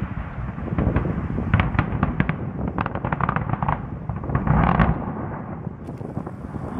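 Open-pit mine blast: blast holes along a bench going off one after another, a rapid series of sharp cracks over a deep rumble, with a louder burst a little past the middle. The cracking then fades into rumble over the last couple of seconds.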